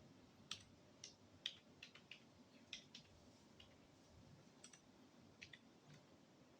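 Faint, irregularly spaced key clicks from typing on a Logitech K480 Bluetooth keyboard, about a dozen presses with pauses between them.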